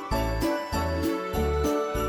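Christmas music with jingle bells over a steady beat of bass notes, about three a second.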